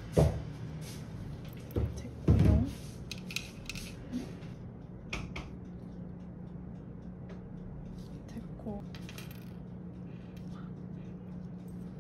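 Metal tweezers clinking and tapping against a glass plate as slices of rice cake and garnish are set down, with the sharpest knocks near the start and about two seconds in, then lighter scattered clicks, over a low steady hum.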